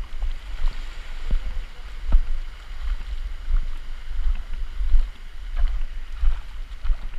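Wind buffeting the microphone as a gusty low rumble, with a few light knocks.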